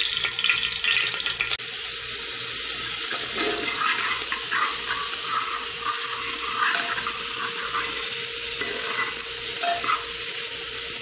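Chopped onion sizzling as it fries in hot soybean oil in an aluminium pot, with a spoon stirring and scraping it around the bottom of the pot.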